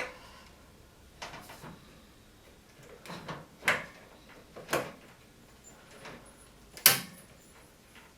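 A handful of short plastic clicks and knocks as the microwave's door latch part and its spring are worked into place on the door. The sharpest, loudest click comes about seven seconds in.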